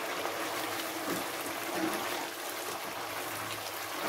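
Thick onion-tomato gravy bubbling and sizzling steadily in a pan on a gas flame, with a wooden spatula stirring through it. The bubbling is the sign that the gravy is starting to fry down (bhuna) in its oil.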